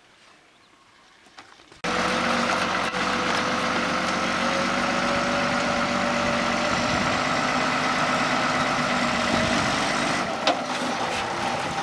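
An engine starts running loudly and steadily about two seconds in, with a thin whine that rises slowly in pitch. The sound drops a little near the end.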